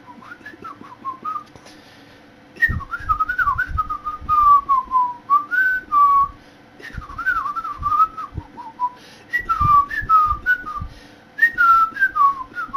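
Loud bird-like whistling: phrases of short slurred notes gliding up and down, with brief pauses between phrases. Low rumbles of air on the microphone sit under the loudest phrases.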